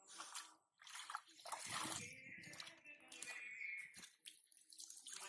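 Hands sloshing and squelching through shallow muddy water in irregular splashes, groping in the mud for fish.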